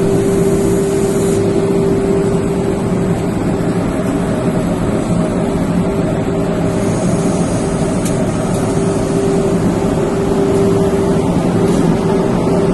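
Industrial woodworking sanding machine running steadily: a constant hum over a broad rushing noise.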